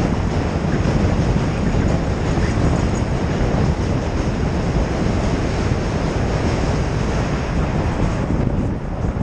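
Steady wind rush on a helmet-mounted camera's microphone while riding, mixed with the rumble of a subway train running alongside on the bridge tracks.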